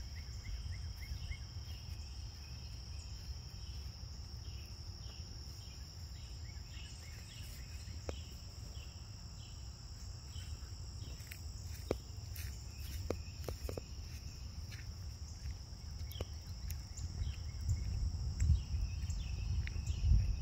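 Steady insect chorus: a constant high-pitched trill, with a few short faint chirps and clicks over it. Under it runs a low rumble, which grows into louder low thumps near the end.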